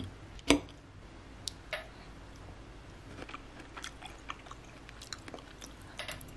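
A metal fork clinks sharply against a ceramic plate about half a second in, then a bite of octopus salad is chewed, with a few small clicks and soft chewing sounds.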